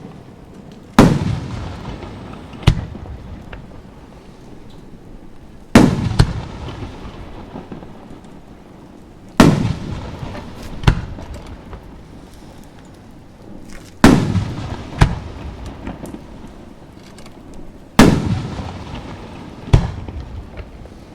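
Aerial firework shells going off one after another: five heavy booms about every four seconds, each with a long rolling echo, and a sharper, shorter bang a second or so after each.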